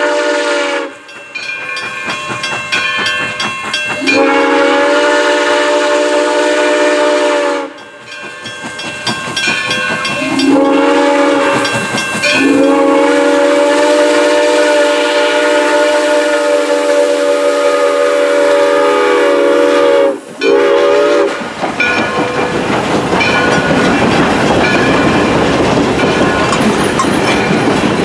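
Black River and Western 2-8-0 steam locomotive No. 60 blowing its chime steam whistle in the long, long, short, long pattern of a grade-crossing signal. The last long blast is held about eight seconds and followed by a brief toot, with exhaust chuffs in the gaps. From about two-thirds of the way in, the passenger coaches roll close past with a steady rumble and clickety-clack of wheels over rail joints.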